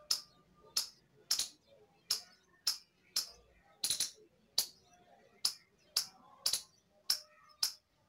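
Indian palm squirrel calling: a string of short, sharp, high chips, about two a second, some coming in quick pairs.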